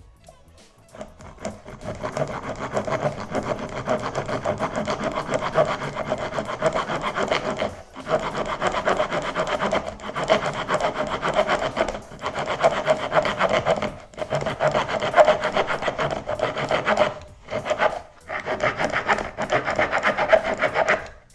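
A multi-tool's blade rasping on wood in fast back-and-forth strokes, stopping briefly several times.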